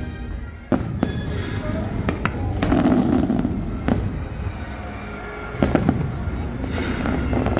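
Aerial fireworks bursting, a string of sharp bangs about every second or so, over background show music.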